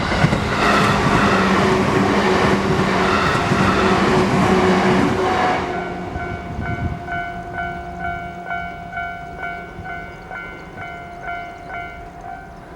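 A train passes over the level crossing while the crossing's warning bell rings in a steady, repeating rhythm. The train noise stops suddenly after about six seconds. The bell keeps ringing on its own and stops near the end.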